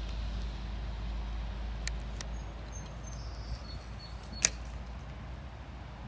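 Fishing tackle being handled in a canoe: a low rumble of handling and movement, a few light clicks, and one sharp click about four and a half seconds in.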